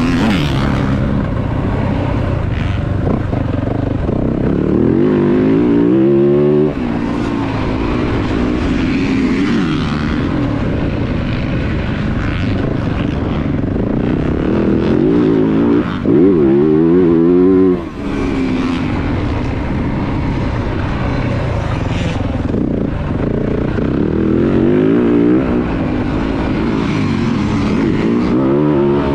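2023 Yamaha YZ450F's 450cc single-cylinder four-stroke motocross engine under riding load, revving up and down repeatedly, its pitch rising in several long climbs. The throttle shuts off sharply about seven and eighteen seconds in.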